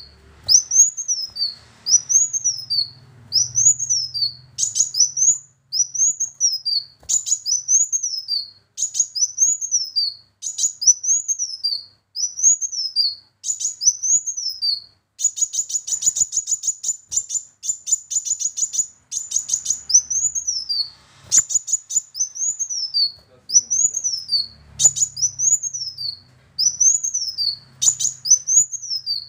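Male kolibri wulung, a sunbird, singing: a string of high, sharp notes that rise and fall, repeated about once a second. About halfway through they break into a fast rattling trill lasting a few seconds, then the phrases resume.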